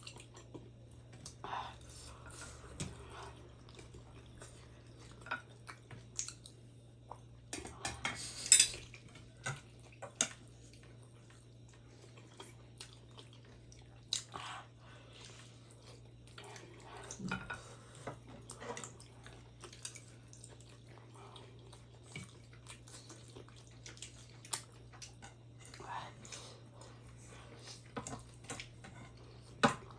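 Close-up eating sounds of chicken momos being chewed: wet mouth clicks and smacks, with occasional light clinks of dishes, the loudest clink about eight and a half seconds in.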